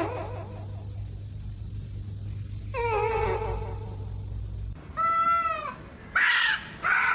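Cats meowing: one drawn-out meow about three seconds in, then three shorter, louder meows in quick succession near the end. A steady low background hum drops out abruptly about halfway through.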